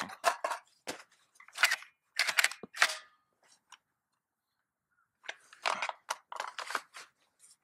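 Sharp metallic clicks and clatter of a Beretta ARX-100 rifle being handled as magazines are swapped, in two bursts with a quiet gap of about two seconds between.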